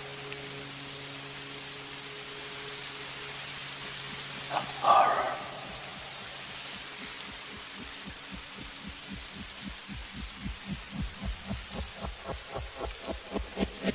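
Helicopter rotor chop fading in: a rhythmic thudding at about three beats a second that starts around halfway and grows steadily louder. It comes over a steady hiss and low sustained drone tones, with one short swell about five seconds in.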